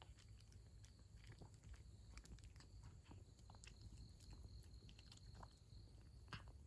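A cat eating wet food and dry kibble, heard as faint, irregular chewing and crunching clicks. One louder crunch comes near the end.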